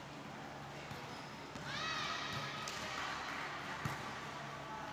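Volleyball rally in a large reverberant hall: two sharp slaps of the ball being played, about a second apart, and a high-pitched shout from a player or spectator about two seconds in.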